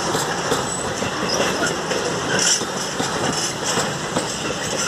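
Container flat wagons of a freight train rolling past: a steady rumble of wheels on rail with irregular clicks and clacks as the wheels cross rail joints.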